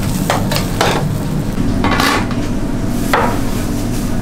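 Metal scraper scraping and knocking against a steel griddle in four short strokes, over a steady low kitchen hum.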